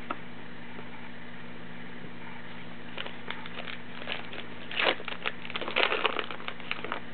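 A foil-lined trading card pack being torn open and its wrapper crinkled: scattered crackles start about three seconds in, with the loudest tearing near the middle and again about six seconds in, over a steady low hum.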